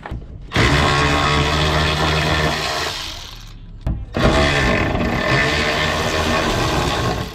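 Cordless power tool running in two bursts of about three seconds each, with a short pause between them.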